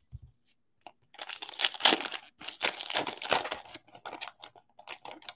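Foil wrapper of a 2020 Donruss Football trading-card pack being torn open and crinkled by hand: about a second in, a couple of seconds of dense crackling as it tears, then scattered short crinkles.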